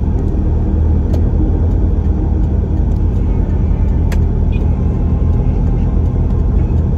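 Steady low rumble of engine and road noise from a moving vehicle in city traffic, with two brief sharp clicks about one and four seconds in.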